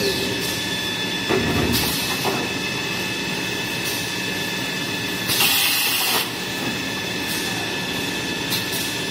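Toilet-paper rewinding machine running with a steady whine of several high tones over mechanical noise. A few knocks come in the first two seconds, and a loud hiss lasting just under a second comes about five seconds in.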